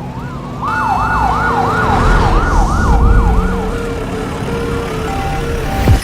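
Emergency vehicle sirens: a slow wail, joined under a second in by a fast yelp that rises and falls about three times a second, then the slow wail again for a couple of seconds. The sound cuts off sharply near the end.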